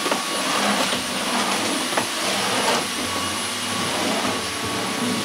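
Cordless stick vacuum cleaner running steadily on a hard floor: a constant rush of air with a faint steady whine, and a couple of light knocks as the head is pushed along the wall.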